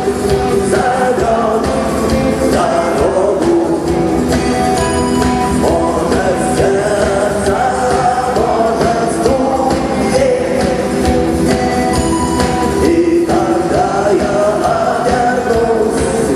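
Rock band playing with a sung vocal, loud and steady throughout.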